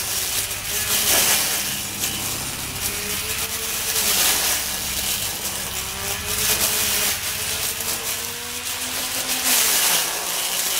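Homemade push lawn mower driven by an old sewing machine motor, cutting short grass. Its motor whine slowly rises and falls in pitch, and there are louder rushes of cutting noise about a second in, around four seconds in and near the end.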